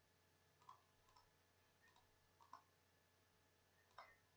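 Faint computer mouse clicks, about half a dozen scattered a few tenths of a second to a second apart, against near-silent room tone.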